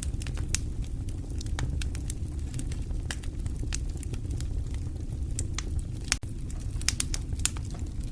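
Wood fire burning in a fireplace: a steady low rumble of flames with irregular sharp pops and crackles.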